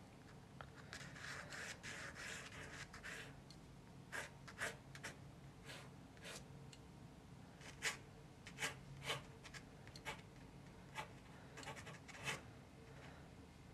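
Faint pencil strokes on paper during a sketch. A stretch of continuous scratchy marks comes about a second in, then a dozen or so short, separate strokes.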